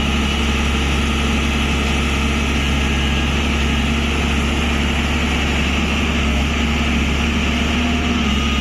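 Tata Hitachi excavator's diesel engine running steadily at an even speed, a constant low drone with no change in pitch.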